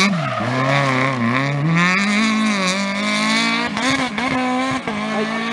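Rally car accelerating hard out of a tight bend, the engine revving up and dropping back several times as it shifts through the gears. A few sharp pops come around four seconds in, then the engine note steadies and fades a little as the car pulls away.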